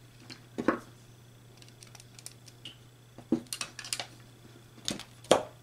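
Irregular small clicks and scrapes of a screwdriver and wire working a relay socket's screw terminal, with the sharpest click about a second in and a quick run of clicks past the halfway point.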